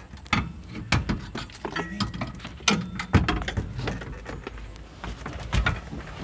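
Irregular knocks, clicks and clunks of a van's front seat and its metal base being worked loose and lifted out, with a louder knock a little past three seconds and another near the end.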